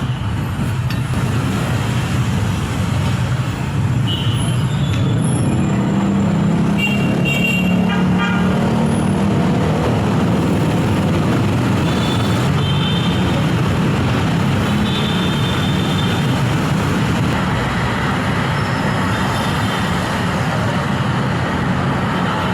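Steady road traffic noise from passing vehicles, with short horn toots about 4, 7, 12 and 15 seconds in.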